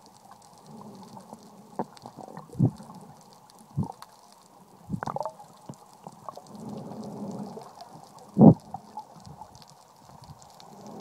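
Muffled underwater sound picked up by a camera held under water: a dull wash of water with irregular low knocks and gurgles, the loudest knock about eight and a half seconds in.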